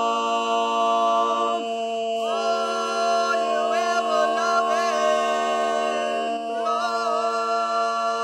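Mixed barbershop quartet singing a cappella, holding long sustained chords at the end of the song. The chord shifts about two seconds in and again past six seconds.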